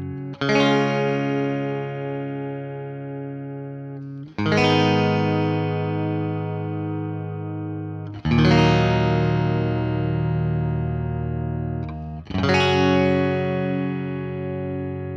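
Telecaster-style electric guitar on its middle pickup setting (neck and bridge pickups together) playing through a Fender Deluxe Reverb reissue amp. Four full chords are strummed about four seconds apart, each left to ring out and slowly fade before the next.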